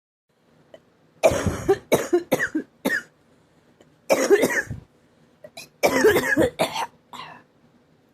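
A person coughing in three bouts: a run of four short coughs, one longer harsh cough, then another run of several coughs trailing off. The uploader puts the cough down to a high pollen count.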